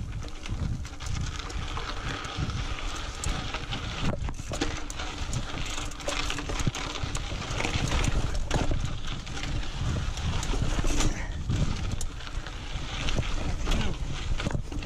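Mountain bike ridden over rocks and boulders: a steady rumble of wind on the microphone, with tyres crunching on rock and dirt and frequent clicks and clunks from the bike as it rattles through the rough ground.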